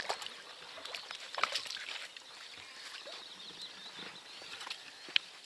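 A small released fish thrashing in very shallow water at the edge, giving irregular small splashes and slaps, the loudest about a second and a half in.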